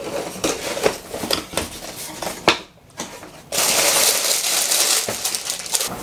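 A cardboard LEGO set box being handled and unpacked, with clicks and rattles of loose contents. About halfway in comes a loud rustle of plastic parts bags that lasts about a second and a half, followed by lighter rustling.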